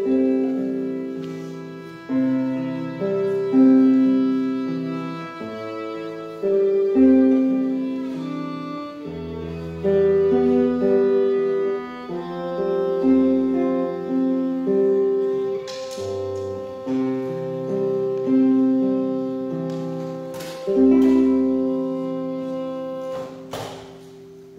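Acoustic guitar and violin playing a slow instrumental piece of ringing chords with a melody over them. The music stops about a second before the end, followed by a couple of knocks.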